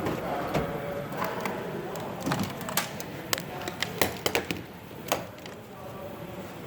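Hand tools clicking and knocking against metal, a run of sharp irregular clanks and taps, as someone works at a stuck EGR valve on a 6.4 Powerstroke diesel engine.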